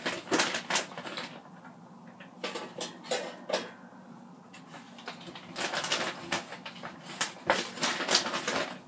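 Plastic bag of frozen breaded fish nuggets crinkling and rustling as a hand reaches in and pulls pieces out, in irregular bursts of crackling with short pauses between.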